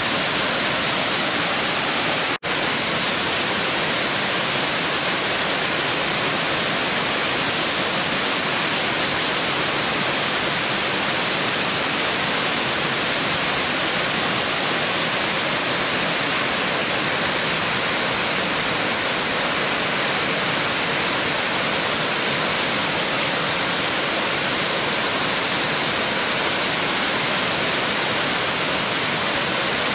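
Swallow Falls, a broad waterfall of white water pouring down rock steps into a pool, making a steady, even rush of water. The sound cuts out for an instant about two seconds in.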